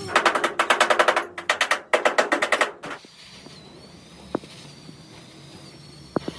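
Two loud bursts of rapid, even mechanical clicking from a workshop tool, each a little over a second long with a short break between, then a few faint single ticks.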